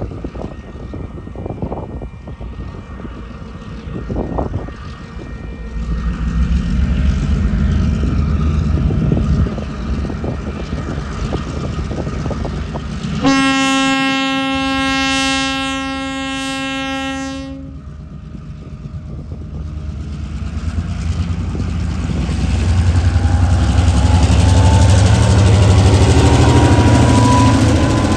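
TasRail DQ-class diesel locomotive 2008 leading a coal train, its engine running and growing louder as it approaches. About halfway through it gives one long horn blast of roughly four seconds as it reaches the road level crossing. Near the end the locomotive's engine is loud as it passes close by.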